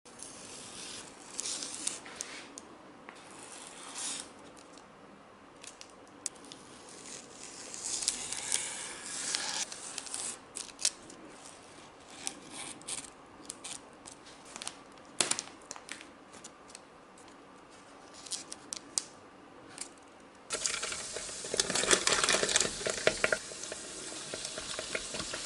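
Paper rustling and crinkling with scattered light knocks and clicks as soft dough rounds are cut with a metal ring cutter and handled on baking paper. Near the end a dense, louder sizzling starts suddenly as the beignets go into hot oil in an electric deep fryer.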